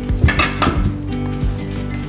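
Background music with a steady beat, with a short bright clatter about half a second in.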